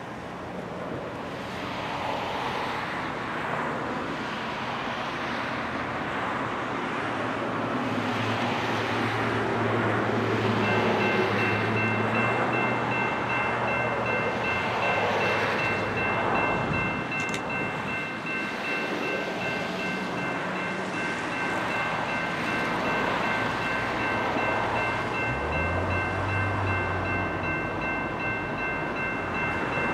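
Railroad grade-crossing warning bell starts ringing about a third of the way in and keeps going, a steady high ringing over the low rumble of an approaching train that grows louder throughout.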